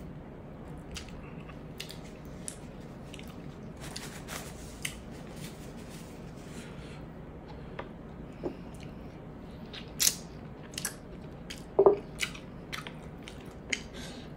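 A person chewing and smacking while eating soft pork hock and rice with the fingers: scattered wet clicks and smacks, a few sharper ones about ten and twelve seconds in.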